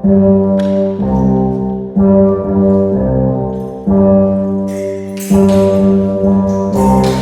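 Brass-toned instrumental music: held chords that change about once a second, with cymbal-like splashes near the end.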